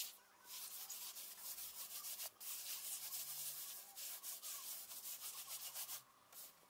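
Rubber-gloved hand rubbing baking soda paste over the inside of an oven in quick back-and-forth strokes, a scratchy swishing. It pauses briefly a little over two seconds in and stops about six seconds in.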